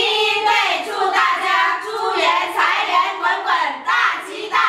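A small group of women singing together in unison, in a string of held notes.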